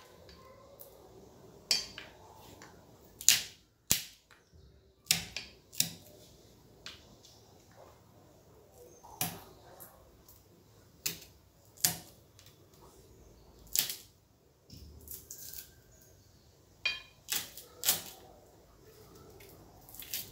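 Small kitchen knife slicing garlic cloves over a steel plate: sharp, short clicks at uneven intervals, about one every second or so, as the blade cuts through and taps the plate.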